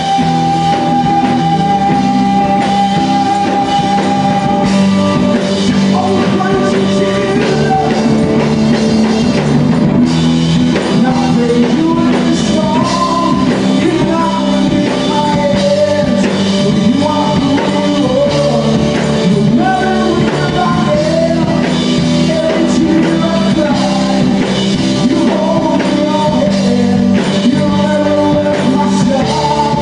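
Live gospel band playing an instrumental passage between verses: drums and bass under a melodic lead line that holds one long note for the first few seconds, then moves freely.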